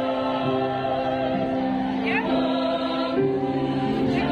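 Choir singing in harmony, several voice parts holding long notes that move to a new chord about every second.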